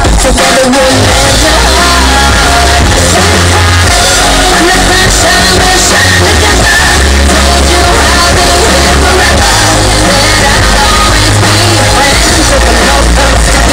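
Loud rock music with a singing voice over a steady bass line that moves from note to note.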